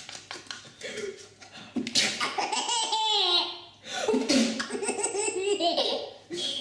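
Baby laughing hard in two long bouts, the first starting about two seconds in, a reaction to someone's sneeze.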